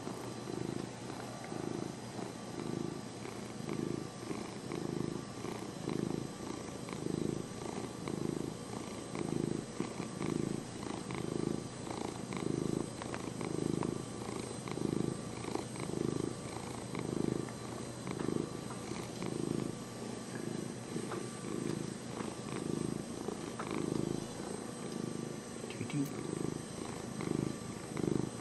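Long-haired domestic cat purring steadily close to the microphone, the purr swelling and easing in even pulses a little more than once a second.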